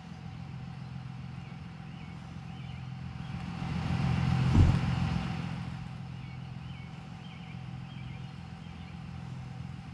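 A pickup truck drives up, its noise swelling for a couple of seconds, with a single door slam, the loudest sound, about four and a half seconds in. A steady low hum runs underneath.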